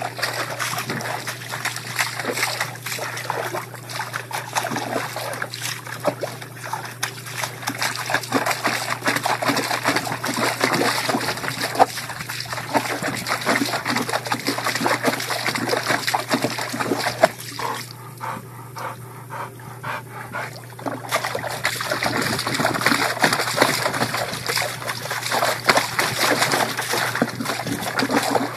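Dog splashing in a plastic tub of water, pawing at it and plunging its head in while a garden hose runs into the tub: steady splashing and sloshing that eases off for a few seconds about two-thirds of the way through.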